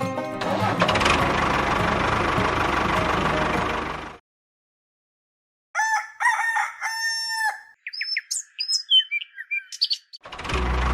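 A dense steady noise for about four seconds cuts off abruptly. After a short silence a rooster crows, with several long calls, followed by shorter chirps and clucks.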